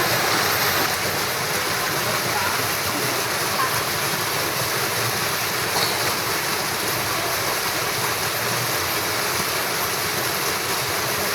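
River water flowing steadily: a constant, even rush of moving water.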